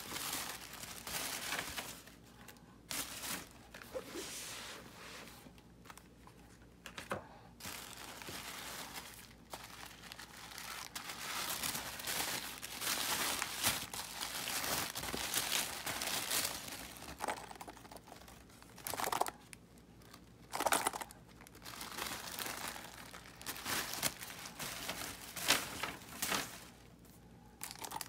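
Crumpled kraft wrapping paper rustling and crinkling as hands dig through it, in irregular surges with sharp crackles.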